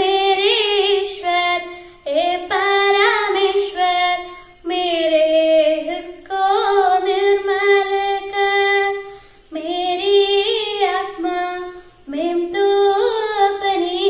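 A girl singing solo and unaccompanied, in melodic phrases of about two to three seconds separated by short pauses for breath.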